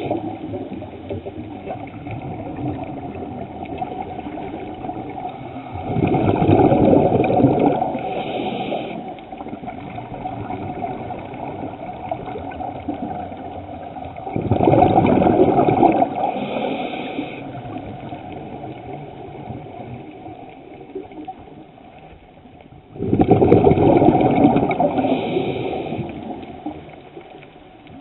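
Scuba diver breathing underwater through a regulator: three bursts of exhaled bubbles, each two to three seconds long and about eight seconds apart, with quieter water noise between.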